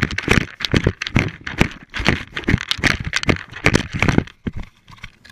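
German shepherd eating from a bowl with its muzzle right against the camera: a fast run of crunches and knocks, about four a second, that stops shortly before the end.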